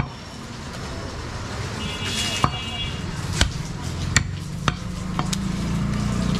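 Heavy meat cleaver chopping goat meat on a wooden chopping block: one sharp chop at the start, then a string of chops from about two and a half seconds in, roughly one every half to one second.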